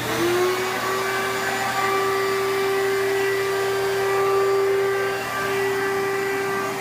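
Vacuum cleaner running steadily, its hose nozzle sealed over an engine's oil fill tube to pull vacuum on the crankcase and hold the oil in. Just switched on, its whine climbs in pitch over the first half second, then holds steady over a rushing hiss.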